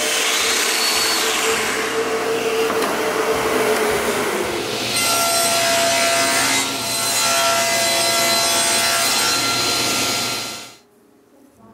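A Festool Domino joiner and its dust extractor running as it cuts into hardwood, with a steady whine. About five seconds in, the sound changes to a table saw running and cutting small walnut parts on a crosscut sled. It cuts off suddenly near the end.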